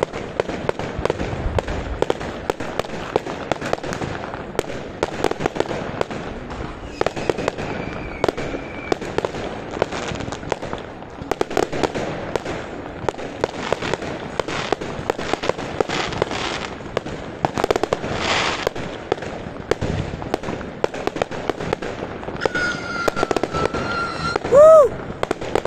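Aerial fireworks going off in rapid volleys, a dense run of bangs and crackles several a second throughout. A brief high tone near the end is the loudest moment.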